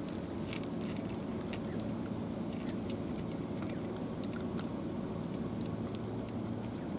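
Cat crunching dry kibble from a plastic tray: scattered sharp crunches, over a steady low engine drone.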